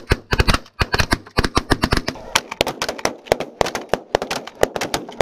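A rapid barrage of shotgun fire from several hunters' 12-gauge shotguns, sharp shots overlapping several to the second, heaviest in the first two seconds and thinning into quicker, lighter cracks after.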